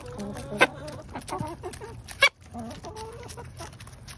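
Hens clucking while they peck worms from a hand, with a patter of small taps and two loud sharp knocks, about half a second in and just after two seconds.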